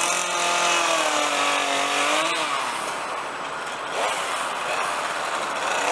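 Petrol chainsaw running at high revs while carving wood. The engine pitch sags and climbs back several times, about two seconds in and again near four seconds and near the end, as the chain bites into the wood and frees again.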